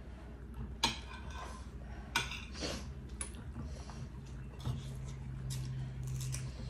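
Eating at the table: a spoon clinking against a ceramic plate a few times, with soft handling noise, over a low steady hum.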